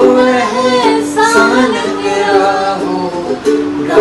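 A woman singing a melody with long held notes, to a strummed ukulele.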